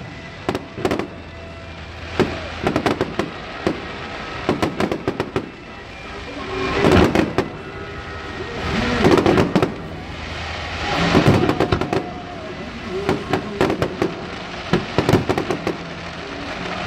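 Aerial fireworks going off: rapid sharp bangs and crackling shell bursts, with three longer, louder swells of noise about 7, 9 and 11 seconds in.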